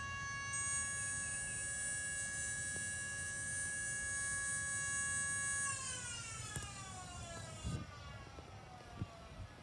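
Federal Signal Model 2 electromechanical siren holding a steady high wail, then winding down from about six seconds in, its pitch falling steadily. Two short low thumps come near the end.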